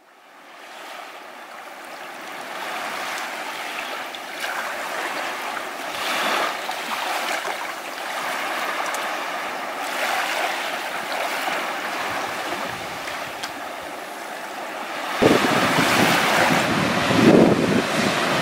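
Sea waves breaking and washing on the shore, fading in at the start and swelling and easing every few seconds. About fifteen seconds in, wind starts buffeting the microphone with a low rumble.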